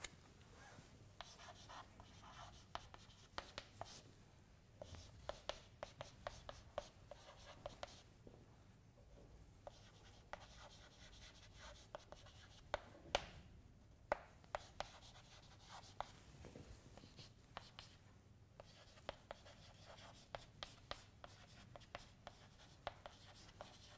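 Chalk writing on a blackboard: faint clusters of taps and scratchy strokes, with short pauses between words.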